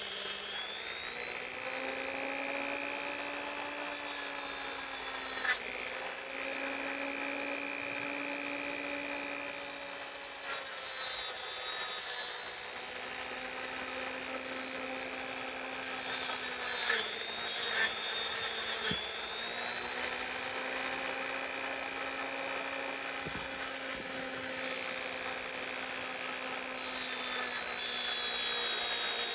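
A handheld rotary tool running at high speed on metal ratchet parts, a steady whine whose pitch sags each time the bit is pressed into the work and climbs back when it is eased off. A few short knocks come about 5 seconds in and twice between about 17 and 19 seconds in.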